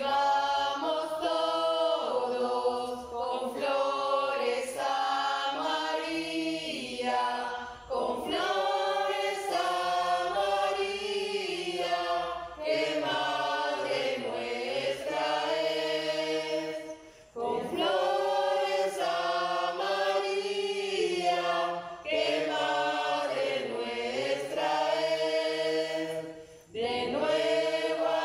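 Small choir singing a hymn together, phrase by phrase, with short breaks between phrases about every nine to ten seconds.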